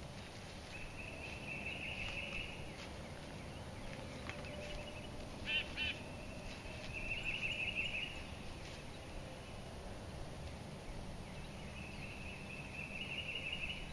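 Birds calling in the woods: three drawn-out high trills a few seconds apart, with a short burst of sharper calls between the first two.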